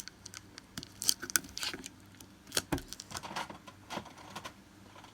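Scattered clicks, taps and short scratches of hands working at a sealed Pokémon card tin and its plastic wrapping, trying to get it open.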